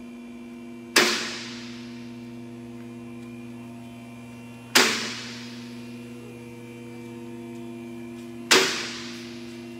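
Two-post vehicle lift raising an SUV: a steady electric hum from the lift's pump motor, with three sharp metallic clanks about four seconds apart, each ringing out briefly, as the safety locks catch on the way up.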